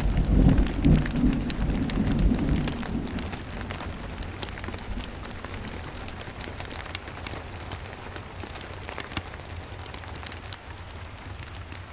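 Steady rain with a low roll of thunder that swells right at the start, loudest in the first second or so, and fades out over the next three seconds. Scattered sharp ticks sound through the rain.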